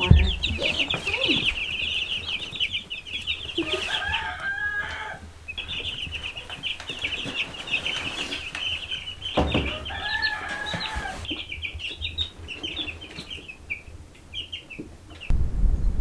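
A brooder full of young meat-bird (broiler) chicks peeping continuously in a dense, high-pitched chorus of short cheeps. Twice, about four and nine seconds in, a lower drawn-out call about a second long sounds over them. Near the end, wind rumbles on the microphone.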